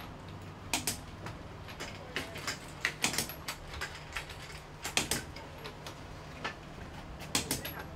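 Irregular sharp clicks and knocks from hand work on a rally car, loudest about three and five seconds in, over a steady low hum.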